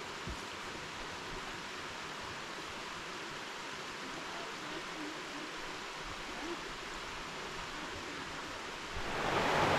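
Steady rushing of a forest creek, growing louder about nine seconds in.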